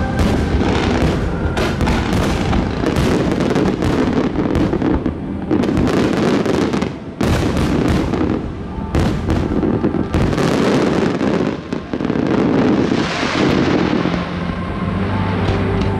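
Dense barrage of aerial fireworks: many bursts in quick succession, with crackling between them. Music plays from loudspeakers underneath, most clearly near the end.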